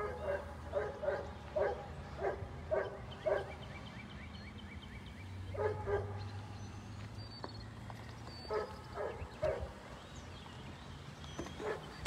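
A dog barking repeatedly in short runs, about two barks a second, with pauses between the runs. A steady low hum runs underneath.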